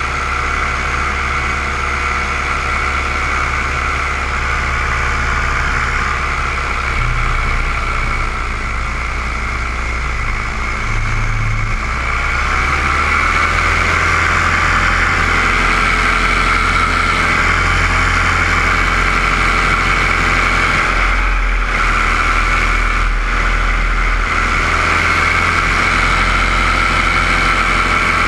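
Paramotor engine and propeller running steadily. The engine speed rises about twelve seconds in and holds there, with a couple of brief dips later on.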